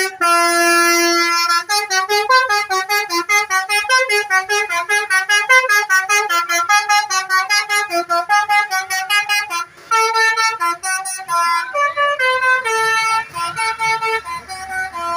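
Bus 'telolet' Basuri musical horn playing a melody: a held note, then a fast run of short notes, a brief break about ten seconds in, and longer notes after it.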